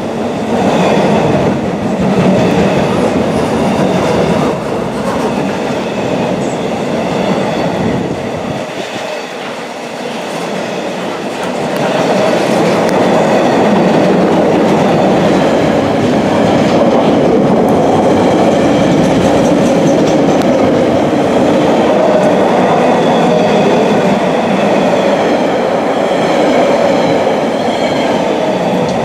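Container freight train's wagons rolling past, a steady noise of steel wheels running on the rails. It eases off briefly about nine seconds in, then holds steady and a little louder for the rest.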